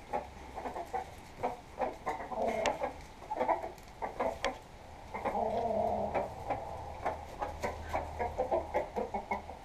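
Domestic birds in a coop calling in low, pulsing bouts that come and go, with scattered sharp clicks.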